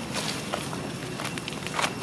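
Footsteps rustling through grass and dry leaf litter, with irregular light crackles and a slightly louder cluster near the end.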